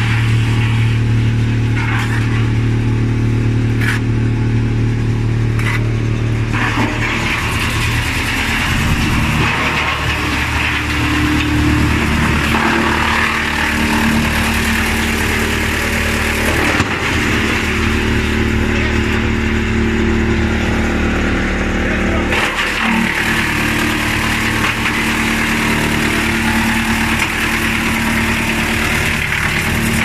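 A 160 kW drum wood chipper running under load and chipping wood logs: a loud, steady machine hum with the noise of chipping laid over it, which grows fuller from about six seconds in.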